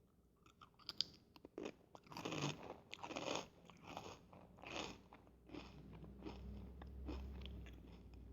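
Fritos corn chips being bitten and chewed close to the microphone: a string of crisp crunches through the first half that turn to softer chewing. A low hum builds underneath in the second half.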